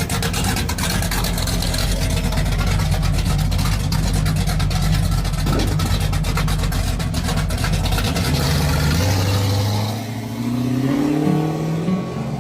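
A car engine running and revving.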